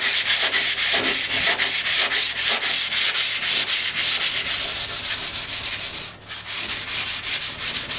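220-grit wet/dry sandpaper on a wooden block, scrubbed back and forth along a wetted handsaw blade to clean off rust and buildup. The strokes are rhythmic, about four a second, with a brief break about six seconds in.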